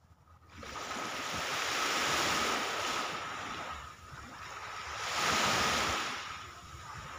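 Small sea waves breaking and washing up on a sandy, pebbly shore, in two swells of surf, one about two seconds in and one about five seconds in.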